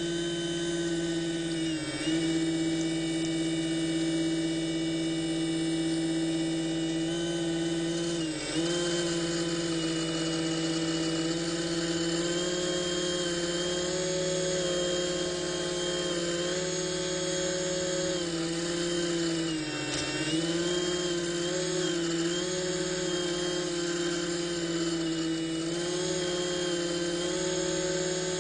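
Robbe Seawolf RC model submarine's electric drive motor whining steadily as the boat runs underwater. The pitch sags briefly and recovers three times: about two seconds in, after about eight seconds, and at about twenty seconds.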